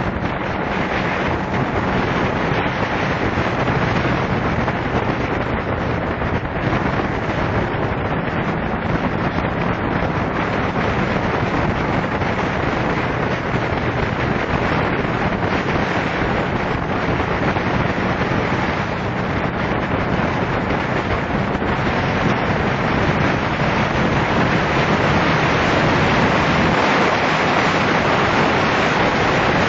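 Wind buffeting the microphone of a moving motorcycle: a steady rush with the bike's engine humming low underneath, getting a little louder in the last few seconds.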